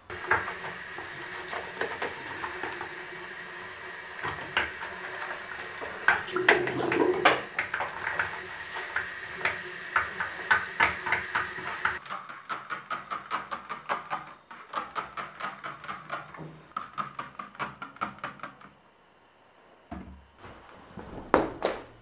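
Household cleaning noises: clinks and knocks over a steady hum, then a run of quick repeated strokes, about four a second, as if something is being scrubbed, which stop near the end.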